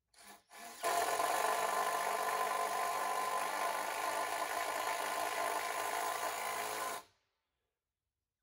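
Handheld power drill working into a timber beam: two short blips, then a steady run of about six seconds that stops abruptly.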